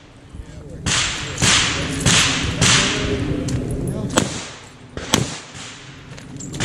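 Shots from a Smith & Wesson 325 revolver firing .45 ACP during a shooting stage: a run of loud cracks in the first three seconds, then two sharp shots about a second apart.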